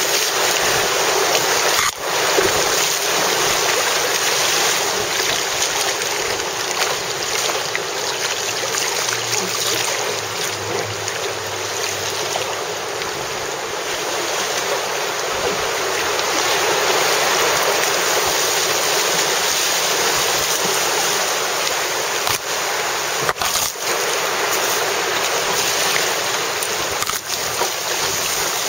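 Fast white water rushing steadily around an open canoe running a rapid.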